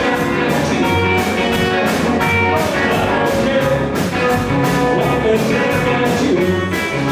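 Live band playing: electric guitars, upright double bass and drums, over a steady beat.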